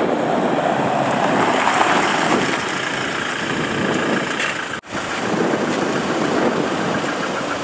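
Toyota Hilux Revo Rocco pickup's 2.8-litre diesel engine running, a steady, even noise without a clear pitch. It breaks off for an instant a little under five seconds in and picks up again.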